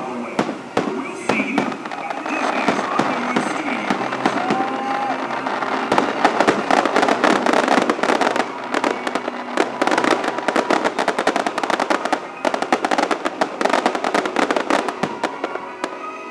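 Aerial fireworks going off: a steady run of shell bursts and crackling that thickens about six seconds in into rapid, overlapping bangs.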